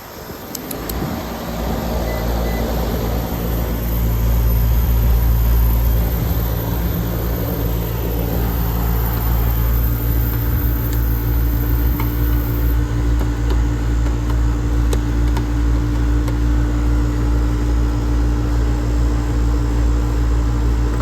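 Payne outdoor AC/heat-pump unit starting up: the compressor and condenser fan come on about a second in, build over a few seconds and settle into a steady, loud hum.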